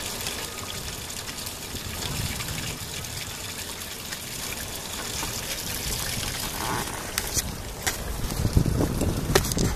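Stormwater trickling out of a drain outfall over rocks, the discharge frothing up into white foam. Near the end, a few sharp clicks and low buffeting, like wind on the microphone.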